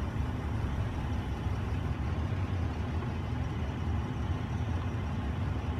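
Steady low rumble of a Ford F150 pickup's engine idling, heard from inside the cab.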